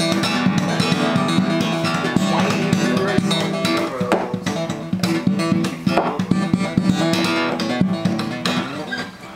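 Acoustic guitar music, plucked and strummed, dropping in level near the end.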